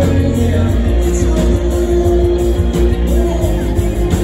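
Live rock band playing through a concert PA, heard from within the audience: heavy bass under electric guitar, with a note held for a couple of seconds in the middle.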